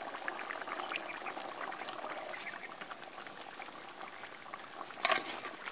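Thick pork curry boiling in a large metal pot, a dense patter of small bubbling pops, with a brief louder noise about five seconds in.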